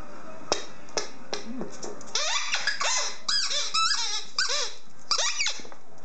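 German Shorthaired Pointer chomping on a JW Pet iSqueak squeaky ball. A few sharp clicks come first, then from about two seconds in a quick string of squeaks, each rising and falling in pitch.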